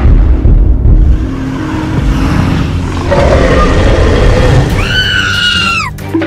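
Cartoon Tyrannosaurus rex roar sound effect over background music. Near the end a high held cry slides sharply down in pitch and cuts off.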